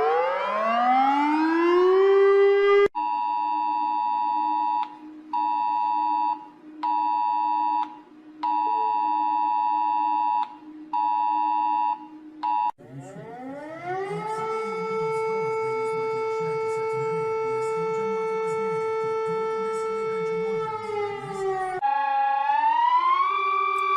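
A run of emergency alert alarm sounds: a siren gliding up in pitch that stops about 3 s in, then a steady two-tone alert signal sounding in on-off beeps of uneven length, then a siren that winds up, holds one pitch and winds down, and near the end a siren wailing up and down.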